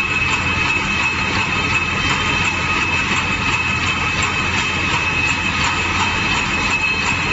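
CS-A automatic barbed wire making machine running with its twisting reel spinning at speed: steady machine noise with a constant high whine.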